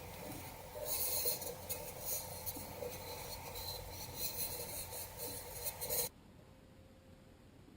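Scratchy rubbing and scraping from items being handled, with small clicks, stopping abruptly about six seconds in.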